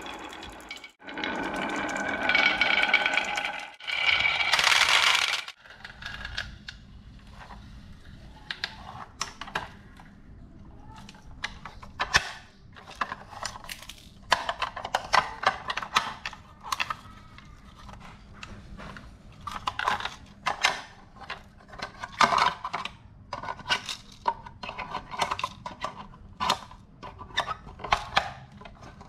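A small electric motor whirs loudly for about five seconds and then cuts off. After that, marbles click and clack down a wooden marble run in irregular clattering runs.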